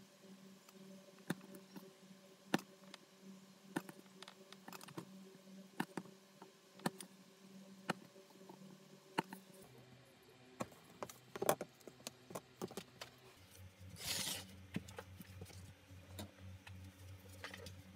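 Leather knife cutting small pieces of leather on a cutting mat: scattered sharp clicks and ticks as the blade cuts through and meets the mat, with one brief noisy rush late on.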